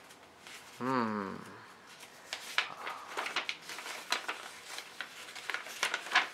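Paper rustling and crackling as a letter and card are handled and unfolded. About a second in, a short vocal sound falls in pitch.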